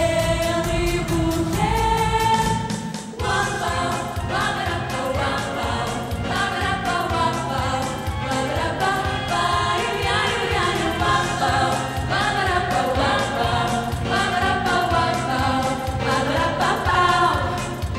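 Four women singing in harmony into microphones over backed pop music. Long held notes open, then after a short break about three seconds in the song continues over a steady beat.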